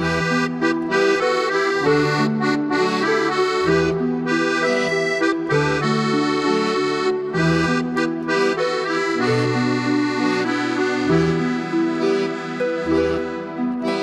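Instrumental background music: a sustained reed-like melody over recurring low bass notes.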